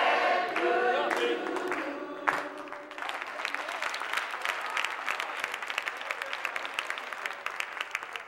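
A choir singing, ending about two and a half seconds in, then applause.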